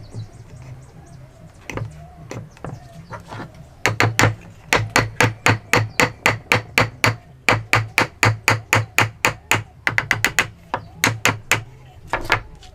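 Hammer striking wood: a few scattered knocks, then a fast, even run of blows at about four a second, with a quicker flurry near the end.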